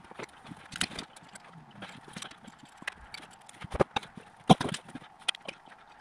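Irregular metal clicks and knocks of an Allen key being fitted and worked on the engine block's coolant drain plug in a tight space, the loudest knock about four and a half seconds in.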